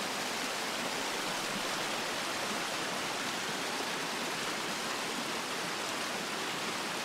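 Shallow creek water rushing steadily over rocks and fallen logs.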